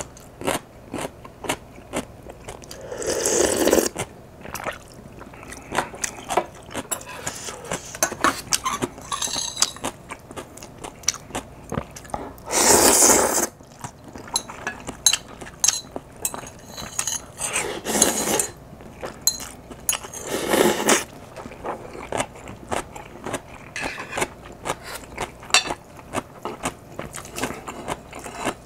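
Close-up eating sounds of spicy instant ramen: steady chewing and mouth noises, small clinks of a metal spoon and chopsticks against the bowl, and four louder slurps of noodles and soup of about a second each, the loudest about halfway through.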